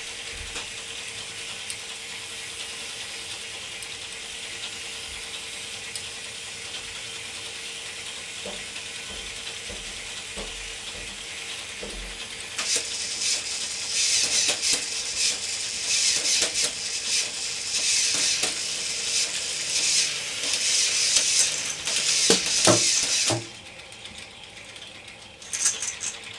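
K'Nex plastic lift mechanism driven by its motors: a steady whir with a faint hum, then from about halfway a much louder run of dense clicking and rattling from the plastic gears and moving parts for around ten seconds, before it drops back to the quieter whir, with a short rattle again near the end.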